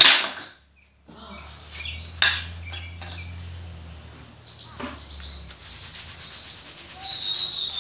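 Sharp strikes of a tool chopping wood: a loud one right at the start, then two weaker ones a little over two seconds and about five seconds in. Birds chirp between them, more often in the second half.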